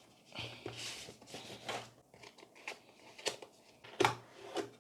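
A cardboard keyboard box being opened by hand: irregular scraping and rustling of the packaging, with a few sharp taps, the loudest about four seconds in.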